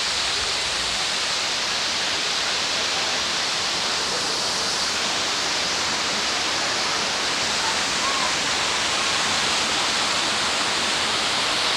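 Waterfall pouring, a steady, loud rush of falling water that stays unchanged throughout.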